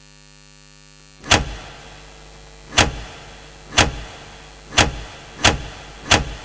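Spotlight switch-on sound effects: a steady electrical hum, then six heavy echoing clunks as stage lights come on one after another, the clunks coming closer together toward the end.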